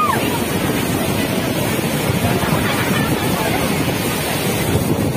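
Flood water rushing out through a dam's lifted spillway gates: a loud, steady rush of water, with wind buffeting the microphone. A brief whistling chirp rises and falls right at the start.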